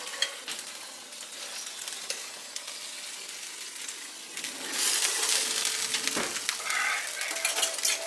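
Hot turkey drippings sizzling in the roasting pan, a steady hiss that grows louder about five seconds in, with a few light clinks of kitchen utensils.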